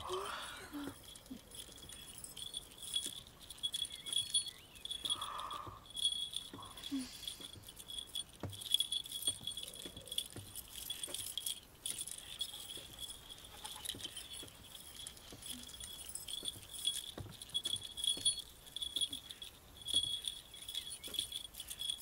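A set of small hand bells shaken by hand, jingling in uneven, irregularly spaced bursts. The player is practising and not keeping a steady rhythm.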